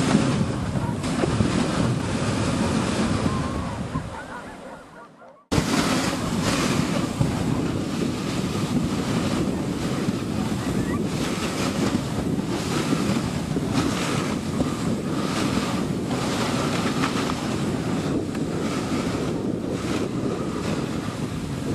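Steady rushing wind noise on the microphone. It fades away about four seconds in, then cuts back in suddenly a second and a half later at the same steady level.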